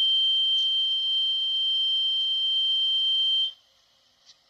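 A steady, high-pitched electronic tone that cuts off suddenly about three and a half seconds in, followed by a faint tick.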